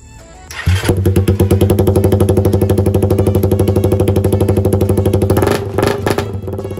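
Suzuki Raider 150's single-cylinder four-stroke engine starts about half a second in and idles with a rapid, even exhaust pulse. Near the end it wavers briefly, then carries on a little quieter.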